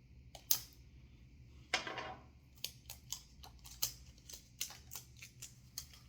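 Irregular clicks and taps from a hot sauce bottle being handled, with a short scrape about two seconds in.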